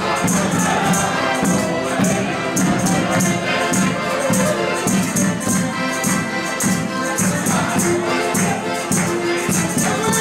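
Live folk music: an accordion holding chords over a hand drum, with a steady beat of jingling percussion.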